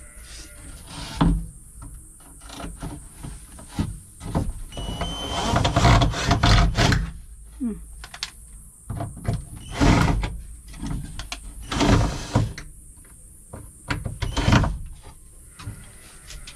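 Cordless drill-driver with a screwdriver bit driving screws into a van's sheet-metal side wall, run in several short bursts with one longer run in the middle, along with knocks against the metal.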